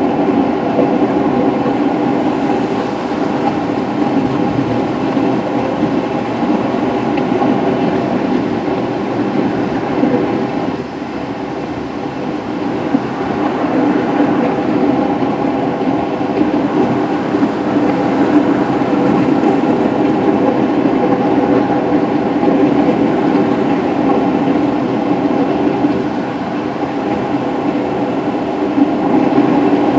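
Steady road and tyre noise inside a car cruising at highway speed, with a constant low drone.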